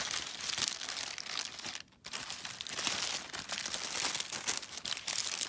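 Thin packaging wrap crinkling and rustling as a wrapped package is handled and pulled out of a cardboard box, with a brief pause about two seconds in.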